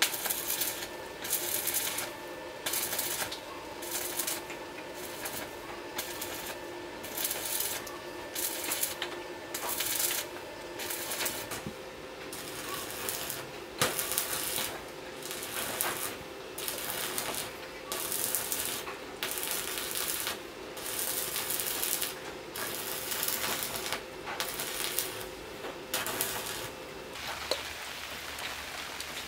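Repeated scraping strokes of a hand tool working a surface, a little more than one stroke a second and fairly even, with a faint steady hum underneath that stops near the end.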